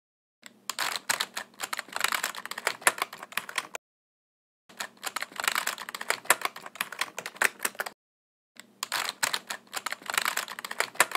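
Typing sound effect of rapid key clicks in three runs, each about three seconds long, with short silent pauses between them.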